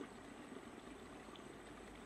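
Faint, steady trickle and burble of a shallow stream running over rocks.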